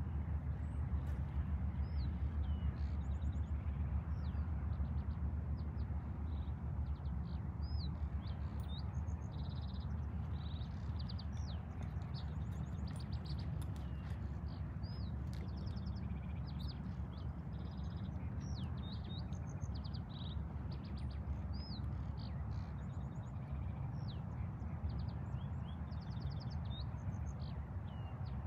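Small birds chirping and trilling repeatedly, with quick high notes and short rapid trills starting about two seconds in, over a steady low rumble.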